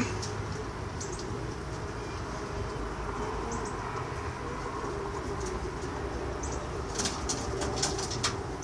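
Pigeons cooing faintly, then from about seven seconds in a pigeon flapping its wings in a quick flurry of beats.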